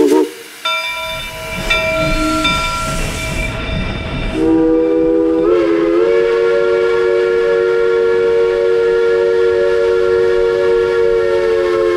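Steam whistle of the century-old Polson No. 70 steam locomotive blowing: first a shorter, higher single note with steam hissing, then about four seconds in a long, steady three-note chord that lasts about eight seconds.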